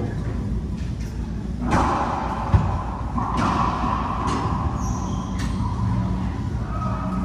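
Racquetball rally: the ball struck by racquets and smacking the court walls, about five sharp, echoing hits roughly a second apart. The loudest is a little over two seconds in.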